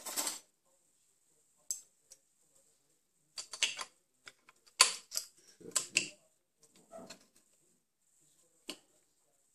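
Intermittent metallic clicks and clinks of an open-end wrench on a clamp nut of a gemstone faceting machine, being tightened to lock the work piece in place; the clicks come thickest around the middle.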